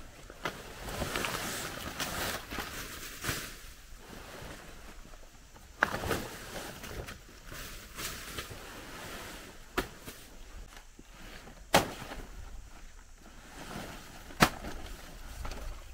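A blade chopping banana plant stalks: single sharp strikes a few seconds apart, the loudest near the end, with rustling between them.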